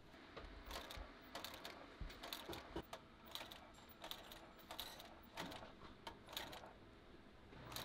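Industrial post-bed sewing machine stitching slowly through thick leather binding, its needle and mechanism giving short, irregular clacks. A low hum comes in near the end.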